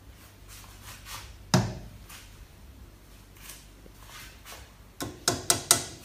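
A single hard knock about a second and a half in, then four quick sharp knocks in under a second near the end, with faint light taps between.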